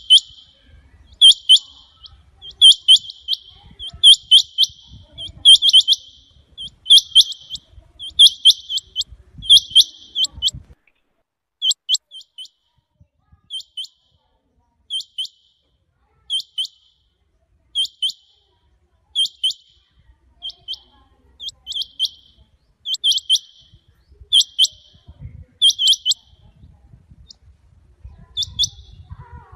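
Rain quail calling: short, sharp, high notes in clusters of two to four, repeated about every one and a half seconds, thinning to single or paired notes after about ten seconds.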